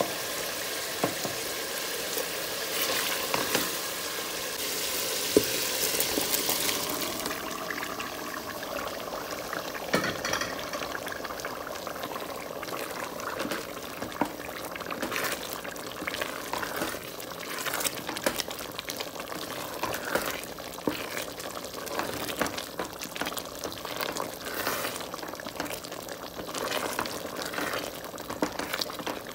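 Onion-tomato masala sizzling in a metal pot as a wooden spoon stirs it, the hiss strongest for the first several seconds. After that the hiss settles and the sound is mostly the wooden spoon scraping and knocking against the pot as kidney beans are stirred through the wet masala.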